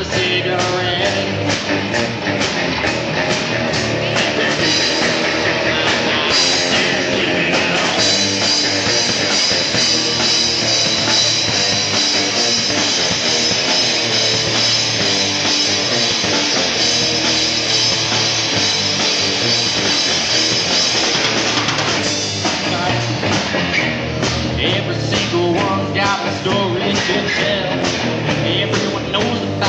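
Live rock band playing with drum kit and guitar; through the middle stretch a bright sustained crash of high-pitched wash holds under the band, and sharp regular drum hits come back near the end.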